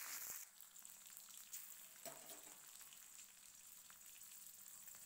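Faint sizzle and crackle of crushed garlic, nigella seeds and halved green chillies frying in mustard oil in a steel wok, with a spatula stirring briefly at the start.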